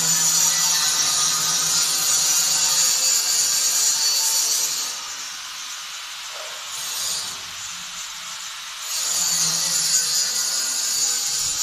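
Angle grinder grinding on a galvanized iron handrail, a loud, steady, high whine. It drops away for about four seconds around the middle, then bites into the metal again.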